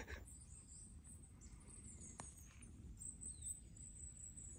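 Faint, high-pitched chirping calls over near silence, with a thin steady high call setting in about two-thirds of the way through and a single soft click a little after two seconds in.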